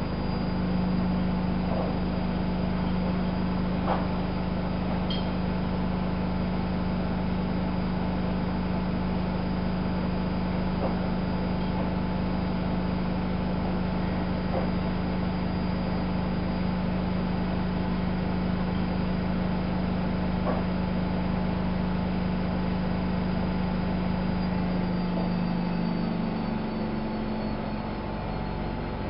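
Miele Novo Super W933 washing machine running with a steady motor hum and a few faint clicks; near the end the hum drops and changes pitch as the motor winds down.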